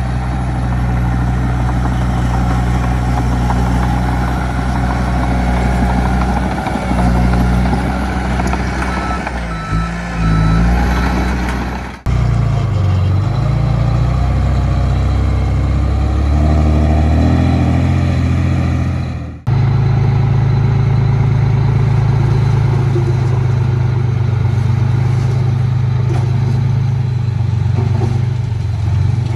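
Heavy diesel engine of earthmoving machinery running steadily with a deep drone. The sound breaks off abruptly twice and comes back each time at a different pitch.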